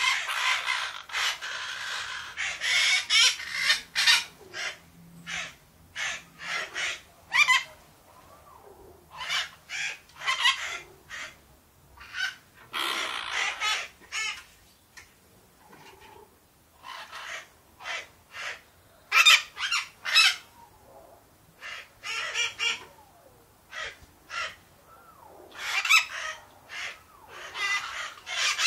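A group of parakeets calling, with harsh rasping chirps and squawks in irregular clusters, now several birds overlapping, now short pauses.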